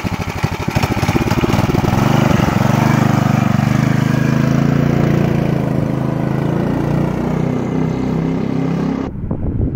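A 10 hp Tecumseh HM100 single-cylinder engine on a mini bike revving up as the bike pulls away on a speed run, then running steadily at high revs. Near the end the higher part of the sound drops away abruptly.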